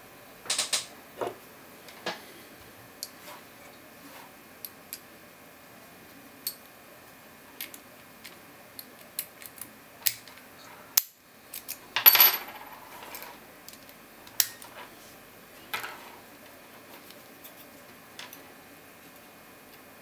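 Lock picks working in the cross-shaped keyway of a 30 mm cruciform-key padlock, with the padlock handled in the fingers: scattered small metallic clicks and scrapes, and a louder rattle about twelve seconds in.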